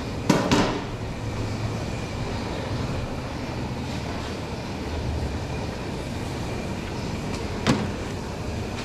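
Steady low rumbling roar of the kitchen's gas burners under the big cooking pots. Metal pots clank briefly about half a second in and give one sharp clink near the end.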